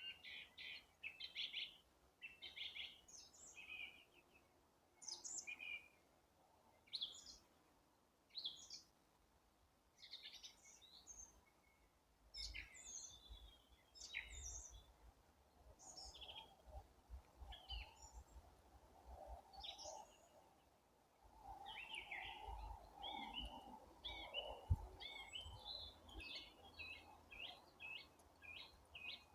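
Songbirds singing in spring, short chirps and phrases from several birds overlapping, the chorus growing busier in the last third. A low background rumble runs through the middle.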